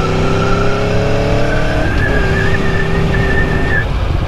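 Motorcycle engine under acceleration, its pitch rising through the gear, then falling sharply at an upshift about two seconds in and running steady; a thin high whine sits above the engine.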